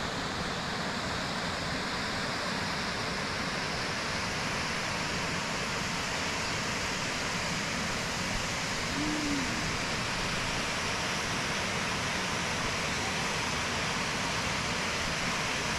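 Waterfall on the Arkavathi River rushing: a steady, even noise of falling water that does not change.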